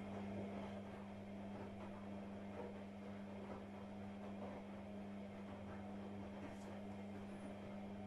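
AEG Lavamat front-loading washing machine running mid-programme: a steady deep hum with a rushing noise over it.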